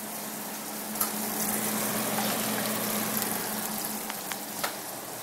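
Sausage frying in a pan, a steady sizzling hiss, with a few sharp clicks of metal tongs against the pan as the pieces are turned.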